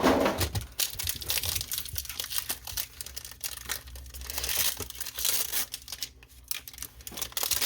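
Pokémon card booster pack wrappers being torn open and crinkled by hand, a crackly rustling with many small sharp crackles.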